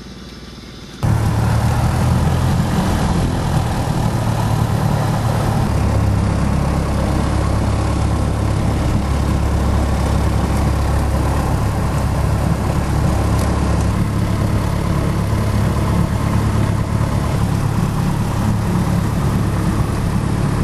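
Light aircraft's piston engine starting about a second in, then running steadily, heard from inside the cabin. Its note changes for a stretch in the middle and settles again.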